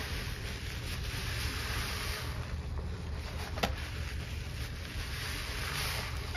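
A soaked sponge squeezed and kneaded by rubber-gloved hands in a basin of thick cleaning-powder suds: wet squelching and sloshing over a steady low rumble, with one sharp click a little past halfway.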